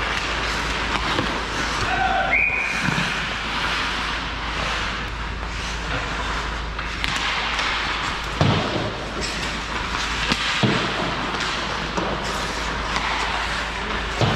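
Hockey game play: steady rink noise of skates and sticks, with two loud thumps about eight and a half and ten and a half seconds in.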